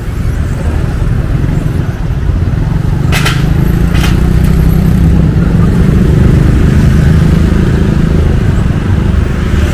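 A motorbike engine passing close, its low rumble building to a peak midway and then easing off, with two sharp clacks about a second apart a few seconds in.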